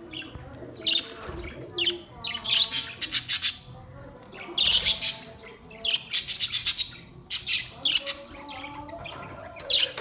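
A flock of budgerigars chattering. Repeated clusters of shrill chirps rise over a steady background of warbling calls.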